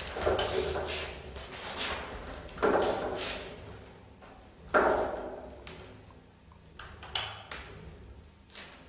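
Electric scooter's hub-motor wheel spun up by the throttle several times, each press starting with a sharp knock and a whir that dies away. The knock on throttle is the fault under test, which the owner suspects comes from a hall sensor in the motor wheel.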